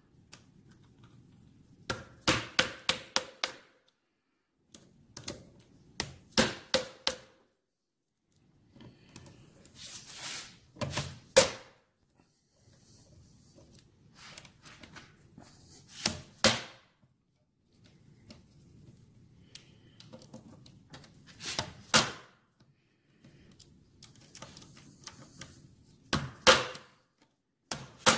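Hand tools on the crankcases of a Triumph 650 engine, working the case fasteners loose: short runs of quick sharp metal clicks every few seconds, each ending in a louder strike.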